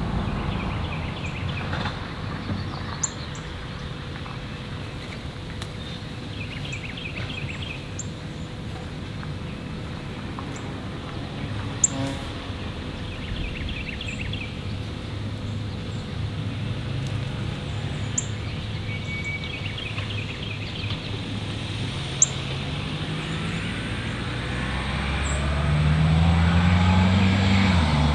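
Outdoor ambience of steady road noise, with a small bird singing short, chirpy phrases every few seconds. Near the end a vehicle passes close by, its engine note rising and then falling.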